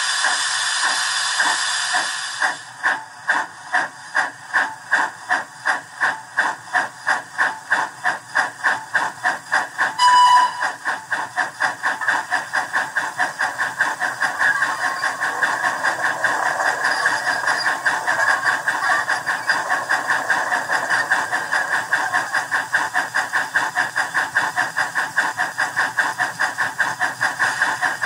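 Steam sound from a Howes sound decoder in a Dapol Terrier model locomotive, through its small loudspeaker: a steady hiss, then exhaust chuffs that start slowly and quicken steadily as the loco gathers speed. A brief whistle sounds about ten seconds in.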